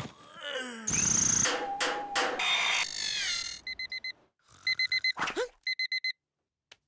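Electronic alarm beeping in three quick runs of four short beeps. Before it come a few seconds of cartoon effects: swishing and zapping noises with gliding tones.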